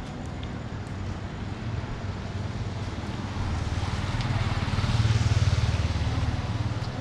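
A vehicle passes on the wet road, its low engine rumble and tyre hiss swelling to a peak about five seconds in and then fading, over a steady wash of rain noise.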